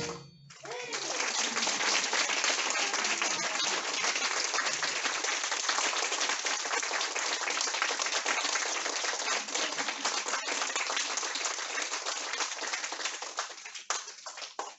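Audience applauding at the end of a wind band piece. The applause starts about half a second after the band's final chord cuts off, holds steady, and thins into scattered claps near the end.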